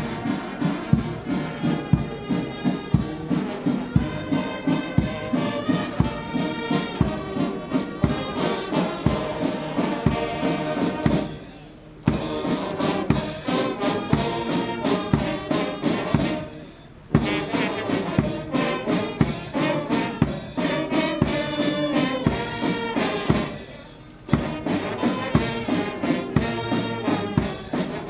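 Military brass band playing parade music: trumpets and trombones over a steady drum beat. The music drops away briefly three times between phrases.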